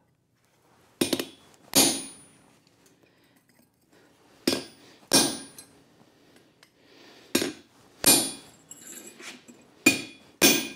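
Hand hammer striking a chisel held on a steel bar on an anvil, eight ringing metal blows falling roughly in pairs, cutting through the bar.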